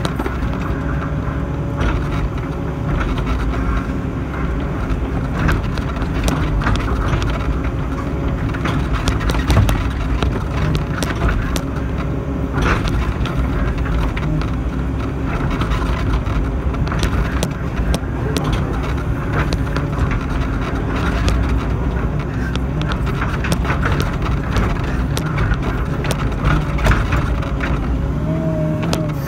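Hydraulic excavator's diesel engine running steadily under work as the boom, bucket and cab move, with a steady whine above the drone and scattered clanks and knocks from the machine. Near the end the pitch rises briefly.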